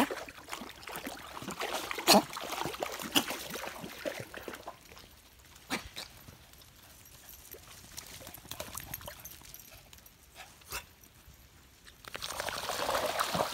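Dogs wading and paddling in a shallow muddy stream, the water sloshing and splashing around their legs. There are a few sharp clicks, quieter sloshing in the middle, and louder splashing near the end.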